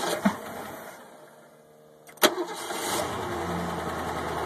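Mercruiser 888 marine V8, newly converted to Ford EEC-IV fuel injection, started with the key. After a quieter stretch there is a sharp click about two seconds in, and within a second the engine catches and settles into a steady idle on its first start after the conversion.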